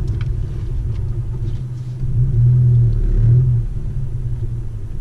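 In-cabin sound of a 2017 Honda Civic's turbocharged 1.5-litre four-cylinder being driven: a steady low engine and road rumble that swells louder from about two seconds in to three and a half.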